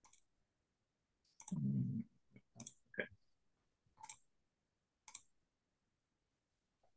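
Faint, sharp clicks at a computer desk, five or six spread a second or so apart, with one duller, louder thump about a second and a half in.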